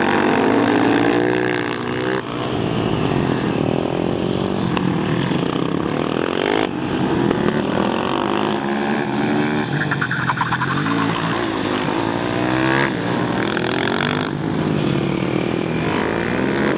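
Supermoto motorcycle engines revving, their pitch rising and falling again and again, with a few sudden changes along the way.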